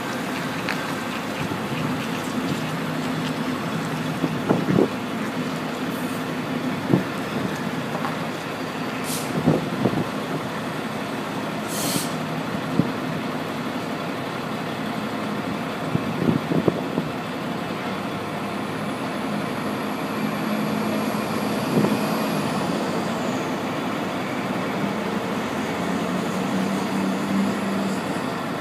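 Class 66 diesel locomotive's two-stroke V12 engine running steadily while shunting steel wagons, with sharp clanks from the wagons every few seconds. A short air hiss comes about twelve seconds in, and a high squeal around twenty seconds in.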